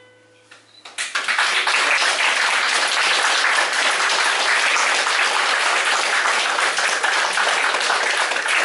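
The last acoustic guitar chord of the song dies away, then about a second in an audience breaks into steady applause.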